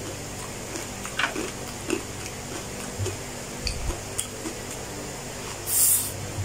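Mukbang eating sounds: chewing fried chicken, with scattered small clicks and knocks of fingers and food against a plate, over a steady low hum. A short, loud hiss comes near the end.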